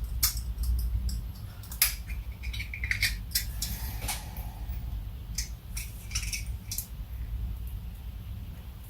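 Light clicks and taps from instrument cluster parts being handled, scattered irregularly over a faint low hum.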